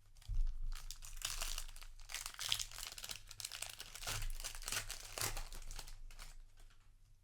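Foil Magic: The Gathering booster pack wrapper crinkling as it is handled and torn open, in irregular crackly bursts that stop about a second before the end.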